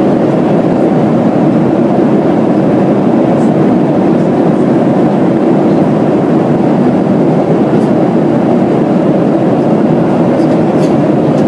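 Steady low roar inside the cabin of a Boeing 737-300 in cruise flight.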